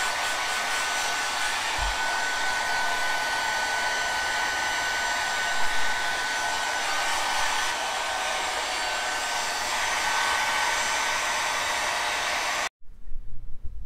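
Handheld hair dryer blowing steadily, a rush of air with a thin steady whistle running through it. It cuts off abruptly near the end.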